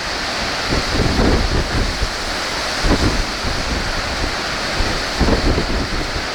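Strong onshore sea wind buffeting the microphone in irregular gusts over a steady rush of surf.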